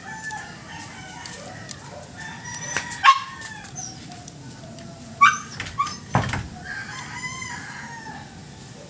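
Rooster crowing with pitched calls, one stronger near the end, along with a few sharp clicks or knocks about 3, 5 and 6 seconds in.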